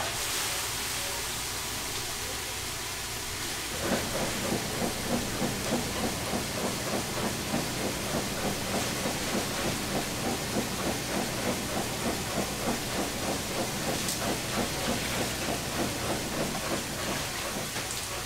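A big pot of sundae (Korean blood sausages) boiling hard over a burner, with a steady hiss of flame and steam. From about four seconds in, rhythmic bubbling surges about twice a second.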